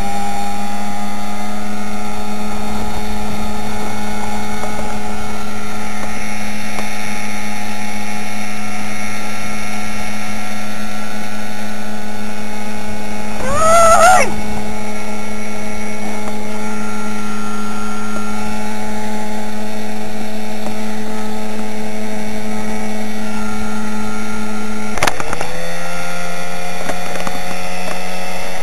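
Motorboat engine running steadily at speed, with a brief rise and fall in pitch about halfway through and a sudden drop to a lower, steady note near the end.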